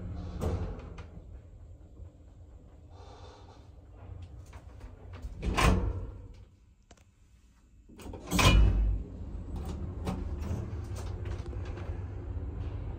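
Doors of an old ZREMB passenger lift banging shut: a sharp slam about halfway through, then a heavier bang with a low thud a couple of seconds later. After the second bang the lift's machinery runs with a steady low hum as the car travels.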